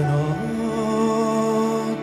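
Live orchestral ballad: a male singer holds one long note over sustained orchestral strings, the pitch stepping up once early on.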